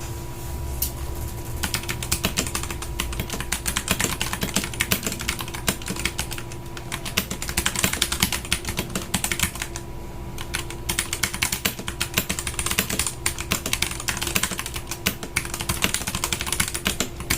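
Typing on a Royal Kludge RK68 mechanical keyboard: a fast, dense run of keystroke clacks that starts about a second and a half in, thinning out briefly twice along the way.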